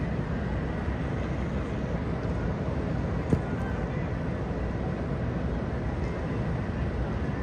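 Steady city background noise, a low rumble of distant traffic, with a single click about three seconds in.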